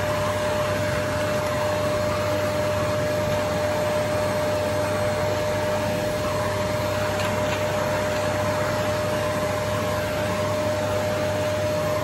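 Canister vacuum cleaner running steadily, its motor noise carrying a constant whine.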